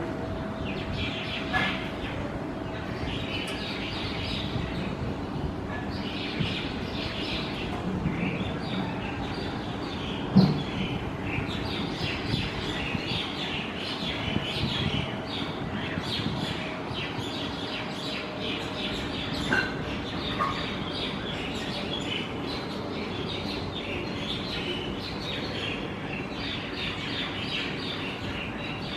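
Many birds chirping continuously in a dense chorus over a steady background hiss, with a single sharp knock about ten seconds in.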